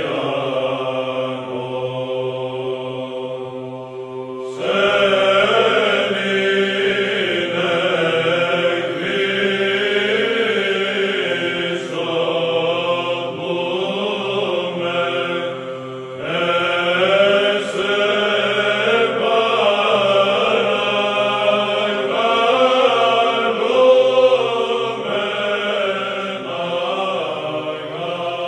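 Background music of chanting voices: sung lines moving over a steady held low drone note, with more voices joining about four and a half seconds in.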